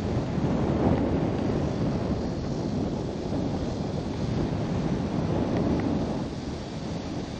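Wind rushing over the microphone in flight under a paraglider: a steady, low, buffeting rush that swells and eases.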